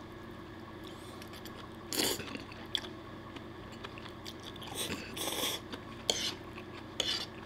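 A person eating spaghetti peperoncino, slurping noodles off a fork and chewing. The mouth noises come in several short bursts, the longest about five seconds in.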